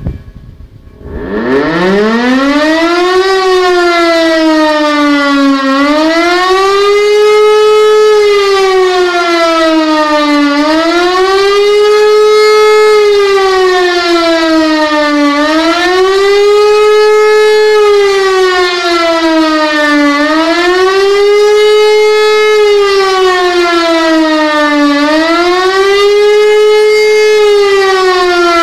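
Civil-defence siren starting up about a second in, its pitch climbing, then wailing steadily up and down, about one rise and fall every five seconds. This rising-and-falling wail is the German public warning signal, sounded here as a test.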